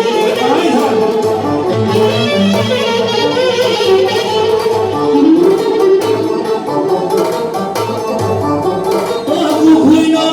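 Instrumental break of a tallava song: plucked-string and violin melody lines over a steady beat.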